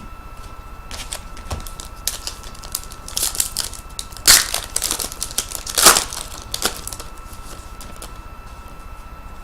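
Crinkling and crackling of trading-card packaging being handled, in a run of short bursts, the loudest two in the middle.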